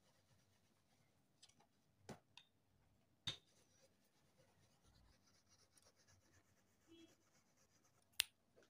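Near silence broken by a few short, sharp clicks and knocks: a wooden rolling pin rolling out paratha dough on a round plastic board. The clicks come around two, three and eight seconds in, and the last is the loudest.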